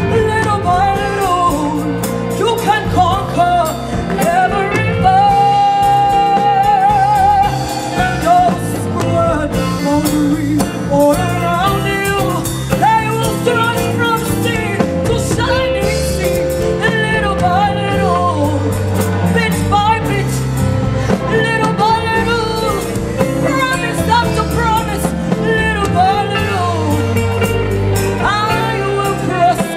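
A woman singing a gospel song, amplified through a handheld microphone, over steady instrumental accompaniment. About five seconds in she holds one long note with vibrato for a couple of seconds.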